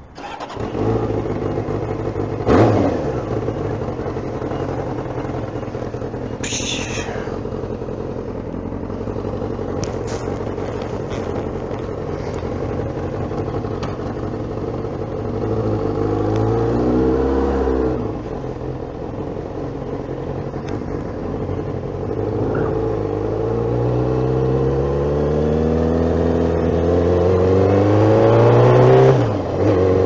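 Honda CBR600 F2 motorcycle's inline-four engine starting about half a second in and idling. It then revs and pulls away, its pitch rising as it accelerates, once in the middle and again in a longer climb near the end.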